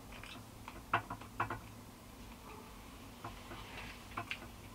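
Close-up eating sounds: scattered wet clicks and smacks of a mouth chewing food, loudest about a second in and again half a second later, with a few softer ones near the end. A faint steady hum lies underneath.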